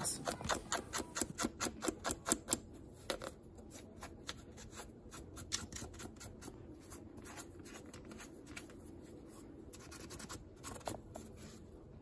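Fingertips scratching and rubbing caked dust off the outer mesh of a Dyson vacuum's cylindrical filter. Rapid rasping strokes for about the first three seconds, then softer rubbing with a few sharper scratches near the end.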